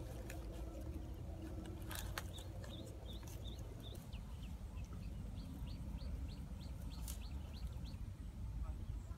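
A bird giving runs of short, high chirps, about three a second, in two spells, over a steady low outdoor rumble. A few sharp clicks fall in between.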